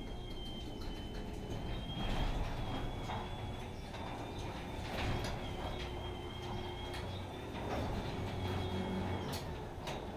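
Chamberlain LW9000WF belt-drive garage door opener raising the door: a pretty quiet, steady motor hum with a faint high whine and a few light clicks, the whine dying away near the end.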